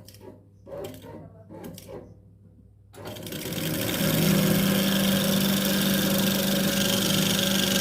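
A few short knocks, then an electric coil winding machine starts about three seconds in, speeds up within a second and runs steadily with a whirring hum, in reverse, winding thin copper wire onto a ceiling fan stator.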